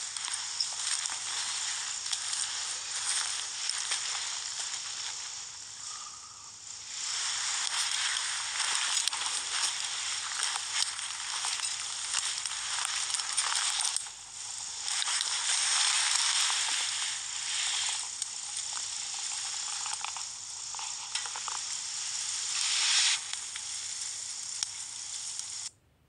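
Wood fire crackling steadily in a small folding steel wood-burning stove, a dense run of small pops and snaps.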